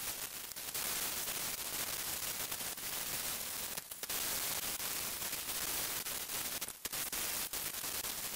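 Toyota Probox's bare-metal engine valve cover being hand wet-sanded with 240-grit sandpaper, sped up so the scratching runs together into a steady hiss. The hiss breaks off briefly twice.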